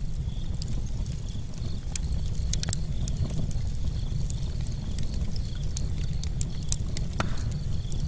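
Wood fire burning in an open metal fire pit, crackling and popping at irregular moments over a steady low rumble.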